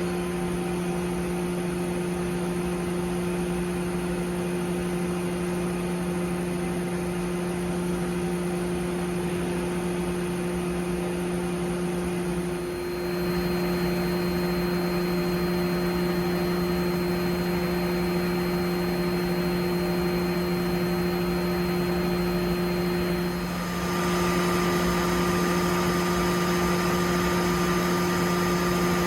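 Mori Seiki SL-204 NC lathe running: a steady machine hum with a higher whine that changes abruptly twice, about a third of the way in and again near the end, as the machine's running state shifts.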